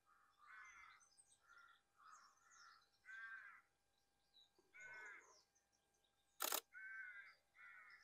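Faint harsh cawing from crow-family birds, repeated about eight times in calls of roughly half a second each. About six and a half seconds in comes a single sharp click, the loudest sound: the shutter of a Nikon D500 DSLR firing a test shot.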